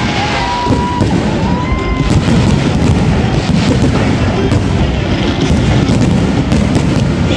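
Fireworks crackling and booming in a dense, loud, continuous barrage, with two short whistling tones in the first two seconds.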